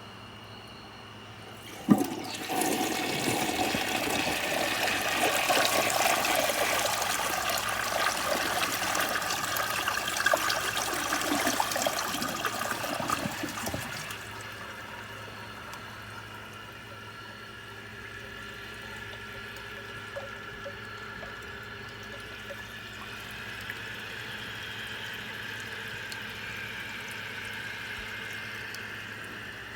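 Mansfield Alto toilet flushing: a sharp clack about two seconds in, then loud rushing water for about twelve seconds. After that comes a quieter, steady hiss of water as the tank refills.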